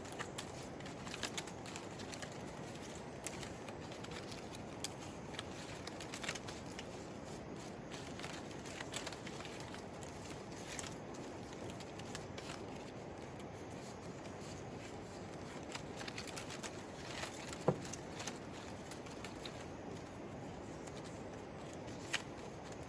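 A steady hiss of background noise with scattered light clicks and taps, and one sharper knock near the end.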